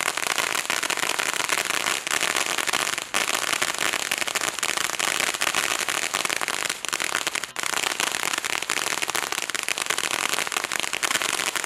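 Black Cat Illuminati ground fountain firework burning: a steady spraying hiss packed with dense, rapid crackling from its crackling stars.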